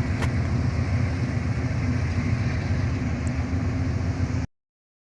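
Steady low rumble of a car on the move, engine and road noise, cutting off abruptly about four and a half seconds in.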